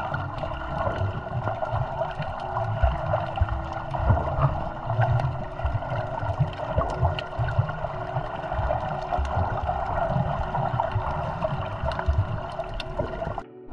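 Muffled underwater noise picked up by a camera held underwater while snorkeling: a steady low rumble and watery hiss with scattered small clicks and faint humming tones. It cuts off abruptly near the end.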